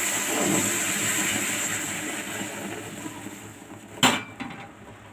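Hot water sizzling and bubbling as it hits hot ghee and roasted broken wheat in an aluminium pressure cooker, loud at first and fading as it settles. A single sharp knock about four seconds in.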